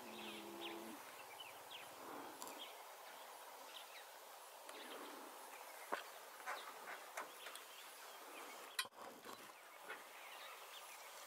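Faint, scattered bird chirps in the bush, with a short low tone in the first second and a couple of sharp ticks about six and nine seconds in.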